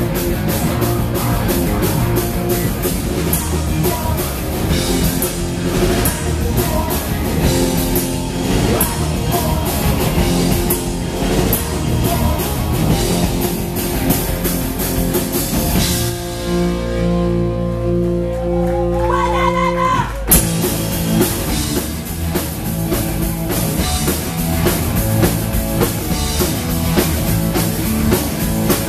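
Live punk rock band playing loud, with drum kit, distorted electric guitar, bass guitar and sung vocals. About two-thirds of the way through, the drums stop for a few seconds while a chord rings out and a rising squeal climbs, then the whole band crashes back in at once.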